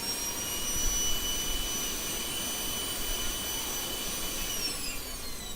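A small electric motor running with a steady high whine, having spun up just before, and beginning to spin down with falling pitch about four and a half seconds in.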